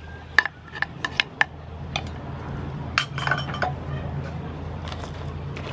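Sliced onion scraped off a cutting board into a metal wok of blue crab: quick clinks and taps against the wok, about five in the first second and a half and a few more later, over a steady low hum.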